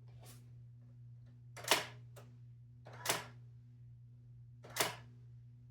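Brother GX-6750 electronic typewriter striking single characters: four sharp clacks, one every second and a half or so, over a steady low hum.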